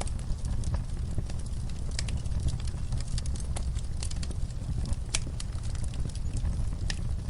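Wood fire burning in a fireplace: a steady low rumble of the flames with irregular crackles and pops, a few sharper pops standing out.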